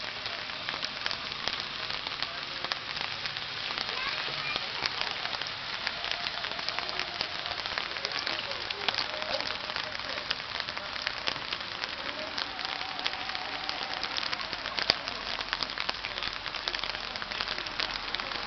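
Steady patter of rain, a dense hiss of fine crackles, with faint voices of onlookers underneath. One sharp click about fifteen seconds in.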